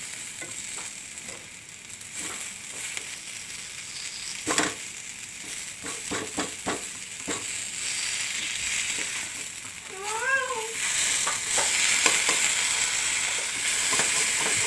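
Potatoes, carrots, green beans and peas sizzling as they fry in a pan, with a few spatula knocks and scrapes against the pan about a third of the way in. The sizzle grows louder about two-thirds of the way through.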